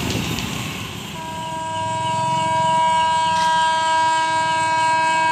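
Train horn sounding one long, steady blast, starting about a second in. Before it, a short stretch of rumbling train and traffic noise.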